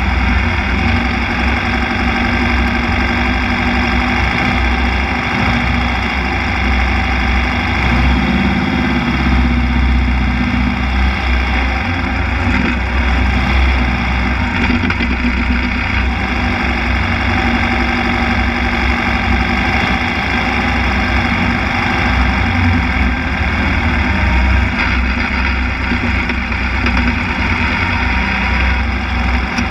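Formula Vee's air-cooled Volkswagen flat-four engine running at low revs near idle as the car crawls along, loud and close to the onboard microphone. The engine note picks up briefly about eight seconds in, then settles again.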